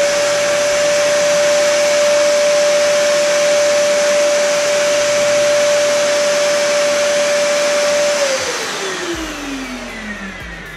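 Dyson Ball Animal upright vacuum cleaner running at full power: a steady high motor whine over rushing air, peaking around 85 dBA. About 8 seconds in it is switched off, and the whine falls in pitch as the motor spins down.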